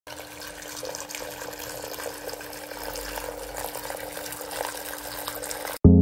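Water trickling and splashing steadily down the tiers of a small cement tabletop waterfall fountain, with a faint steady hum under it. It cuts off abruptly near the end, where a struck piano-like note of background music begins.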